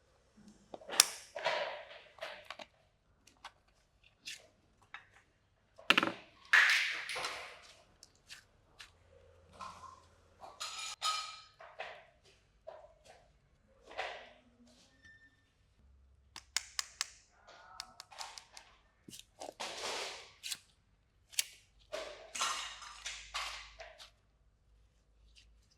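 Slime and a plastic toy being handled: irregular sticky pops, clicks and squelchy crackles with short gaps between them.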